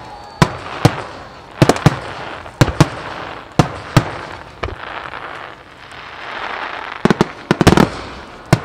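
Fireworks exploding: a series of sharp bangs, several coming in quick clusters, with a rushing noise between them.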